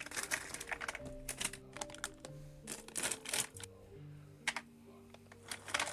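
Soft background music of held, sustained notes, with irregular small clicks and crinkles from handling plastic packaging.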